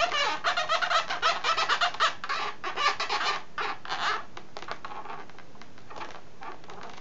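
Permanent marker squeaking on an inflated white latex balloon in many short, quick strokes as a nose is filled in with ink. The squeaks thin out after about four seconds and stop about a second before the end.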